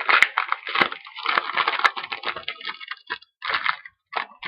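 Trading card pack being opened by hand: its wrapper crinkling and tearing in a dense run of crackles that thins out toward the end.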